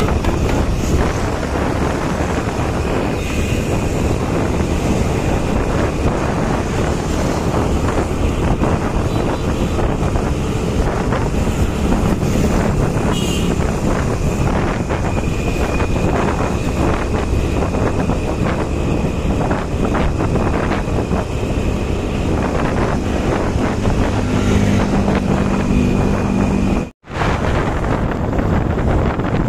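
Wind buffeting the microphone over the running of a motorcycle riding along, a steady, dense rush that cuts out for an instant near the end.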